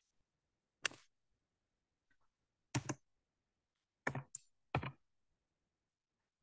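A handful of short, sharp computer mouse clicks in small groups, one about a second in, a pair about three seconds in, and three more between four and five seconds in, with near silence between them.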